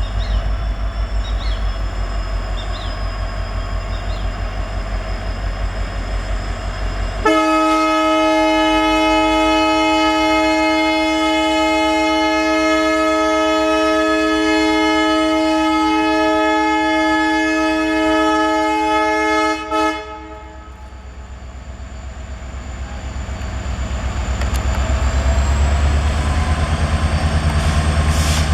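WDP-4B (EMD GT46PAC) diesel-electric locomotive's engine rumbling, then its horn sounds one continuous blast of about twelve seconds, a chord of several steady tones that cuts off suddenly. The engine's rumble then dips and builds again as the locomotive powers up and accelerates.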